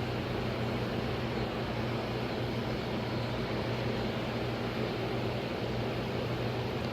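Steady low hum with an even hiss, unchanging throughout, like a running fan or machine.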